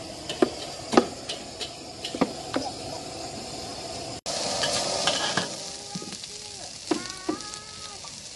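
Fried noodles sizzling in a large steel wok, with a metal spatula stirring and knocking against the wok in sharp clacks about every half second. The sizzle is louder in the second half.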